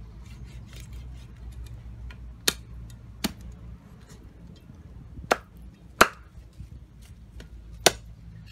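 Meat cleaver chopping raw chicken on a round wooden chopping board: five sharp, loud chops at uneven intervals, with lighter knocks and taps in between.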